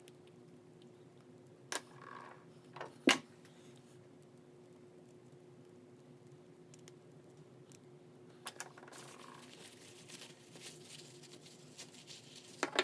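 Small tools on a hand ratchet's cover-plate screws: a few sharp, separate metal clicks and taps, the loudest about three seconds in, a pair at about eight and a half seconds and a quick cluster near the end.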